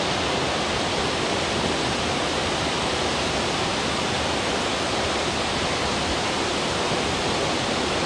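Flash flood of muddy water rushing steadily down a rocky wadi, a constant, even rush of water over stones.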